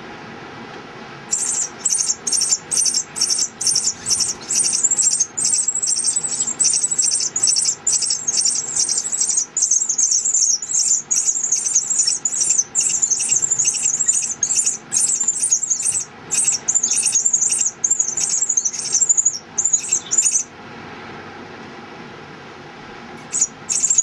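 Pearly-eyed thrasher nestlings begging to be fed: a fast, unbroken run of high, thin squeaking calls that starts about a second in and stops abruptly after about twenty seconds, with a brief burst again near the end.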